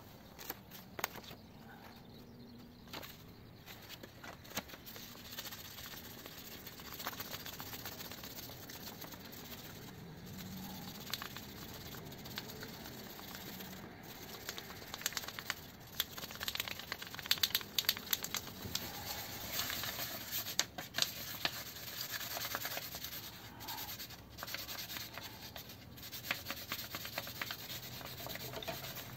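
Fatwood ring being hand-sanded, rubbed back and forth in a folded sheet of sandpaper between the fingers: a continuous scratchy rubbing that grows louder in the second half.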